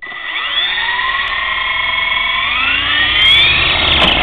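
Small electric RC helicopter's motor and rotors spinning up for lift-off: a loud high whine that starts suddenly and rises in pitch over about three seconds. One rotor blade is already damaged.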